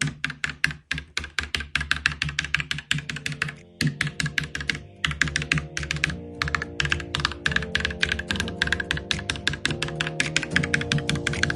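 Fast typing on an Akko 5108 mechanical keyboard: a rapid, uneven run of key clacks with a couple of brief pauses.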